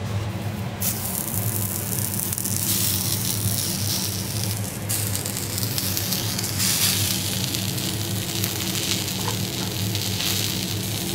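Wet bamboo leaves sizzling on a hot steel teppanyaki griddle, the hiss starting suddenly about a second in and going on steadily, over background music.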